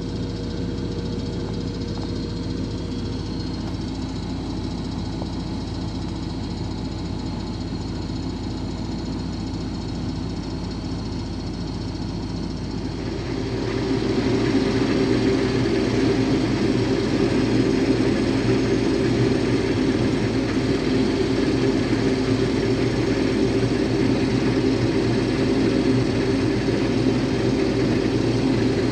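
Case IH combine running steadily, heard from the operator's seat. About halfway through, its sound grows louder and fuller, then holds steady.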